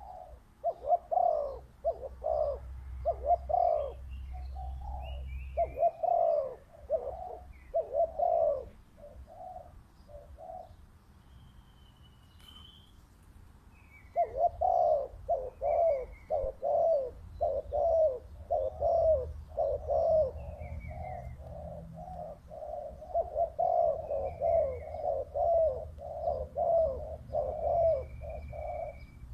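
Spotted doves cooing: runs of repeated deep coos with a pause of about four seconds in the middle, and faint chirps of small birds above them.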